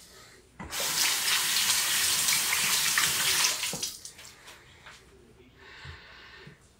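Water running hard from a tap for about three seconds, then turned off suddenly. Near the end comes a short, fainter scraping as a razor is drawn through lather on the jaw.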